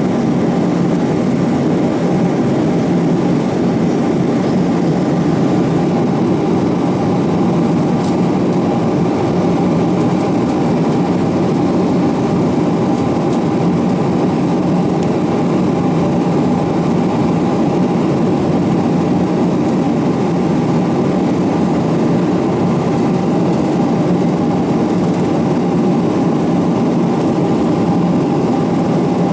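Steady cabin noise inside a Boeing 777-200ER in flight: the even rush of the engines and airflow over the fuselage, with a faint steady hum, unchanging throughout.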